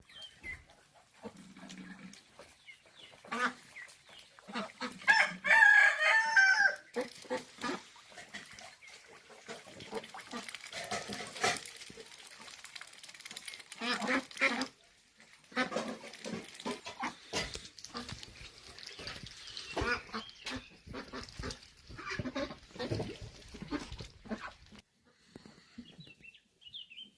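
Chickens clucking, with a rooster crowing once about five seconds in, the loudest sound, amid scattered short clicks and knocks.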